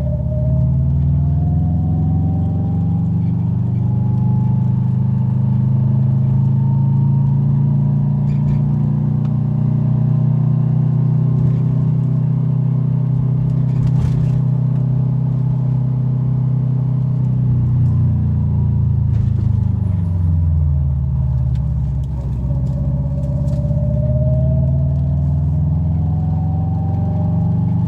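Car running with a steady engine drone and a thin, high-pitched squeaking from behind the driver-side fender. The squeak glides up in pitch near the start and again over the last several seconds. The engine note dips and climbs back up about two-thirds of the way through.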